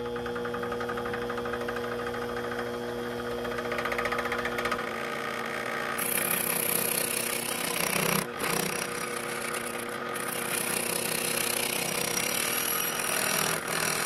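Vevor 7x14 mini metal lathe running with a steady motor whine while turning a cleanup cut on the outer side of a metal adapter plate. The cutting noise grows brighter and louder about six seconds in, with two brief dips.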